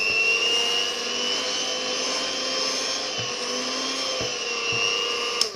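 Electric hand mixer running at speed, its beaters whipping cream into crème chantilly: a steady motor whine that cuts off near the end.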